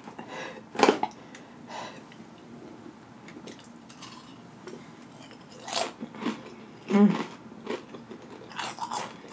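Close-up chewing and crunching of Paqui Haunted Ghost Pepper tortilla chips, with irregular crisp crunches. The loudest come about a second in and around six to seven seconds.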